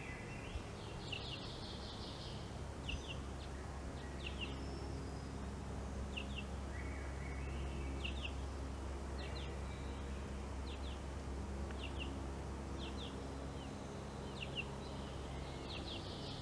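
Hummingbird chip notes: short, sharp double chips repeated about once a second, with a couple of brief buzzy bursts, over a steady low hum.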